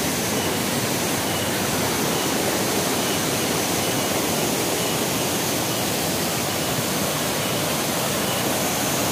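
Small waterfall and mountain stream rushing steadily, an even hiss of falling and flowing water.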